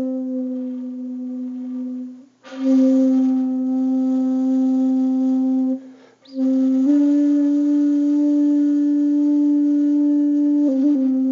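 Background music of slow, long held single notes, each lasting several seconds, with short breaks about two and a half and six seconds in.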